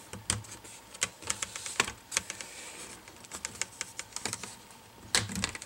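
Plastic clips of an ASUS Q400A laptop's screen bezel snapping loose as fingers pry the bezel up and out: an irregular run of sharp little clicks.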